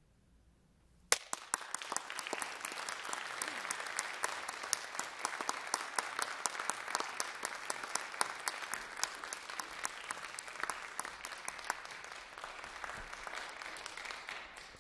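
Audience applause breaking out suddenly about a second in, after a moment of near silence, and going on steadily.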